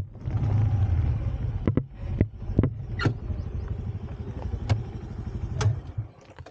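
Scooter engine running at a low, steady rumble, broken by several sharp knocks, with the rumble dying away near the end.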